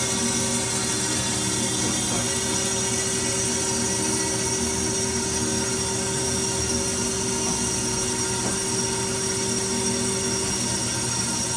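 Kalamazoo KC12AX automatic horizontal band saw running steadily, its blade taking the first end cut through the bar stock, a constant machine hum with a high whine over it.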